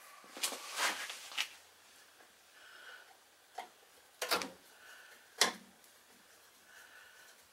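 Scattered clicks and scrapes of a Phillips screwdriver and hands working at the kill switch of a Tecumseh 8 HP snowblower engine. There is a cluster of scrapes at the start and two sharp metallic clicks later on.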